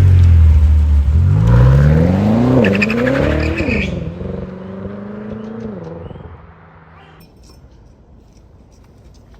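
BMW M5 F10's twin-turbo V8 accelerating hard: the engine note dips, then climbs steeply, drops sharply at an upshift and climbs again, with crackles near the top of the second climb. It then eases off and fades away by about six or seven seconds in, leaving only faint clicks.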